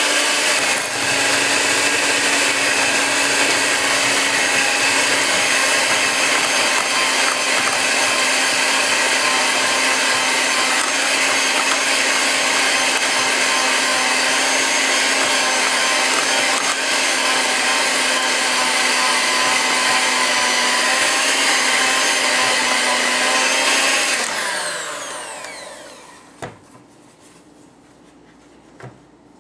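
Black & Decker electric hand mixer running steadily on its lowest speed, its beaters churning raw minced chicken and egg. About 24 seconds in it is switched off and its whine falls away as the motor winds down, followed by a couple of light knocks.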